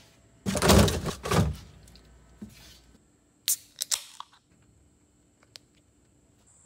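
Rustling and knocking as a beer can is pulled from a cardboard case in a fridge. About three and a half seconds in, the aluminium can's pull tab cracks it open with a sharp pop and a short fizzing hiss.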